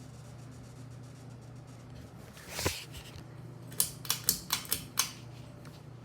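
Hampton Bay Littleton ceiling fan with a low, steady hum, joined partway through by a short swelling swish. It is followed by a quick run of six sharp clicks.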